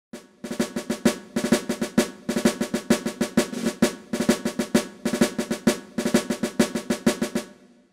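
Intro music of fast snare drumming in a steady rhythm over a low held tone, fading out near the end.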